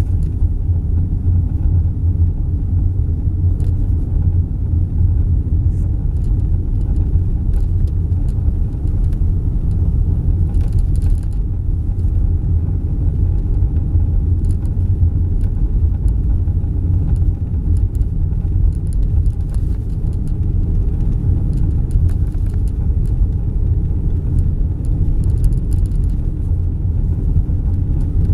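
Car driving over snow-covered streets, heard from inside the cabin: a steady low rumble of engine and tyre noise, with a few faint ticks.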